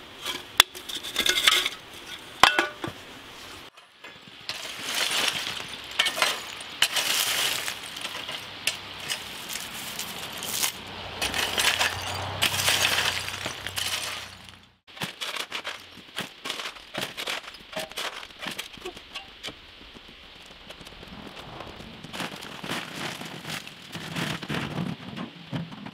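Old aluminium beer cans clinking together as they are handled. After that, a rake scrapes through broken concrete block rubble on gravel, and then loose block chunks clatter with many sharp clicks.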